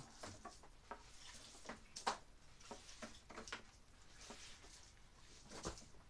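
Faint rustling and scattered light knocks and clicks of a long electrical cord being gathered up and coiled off the floor, with one sharper knock about two seconds in.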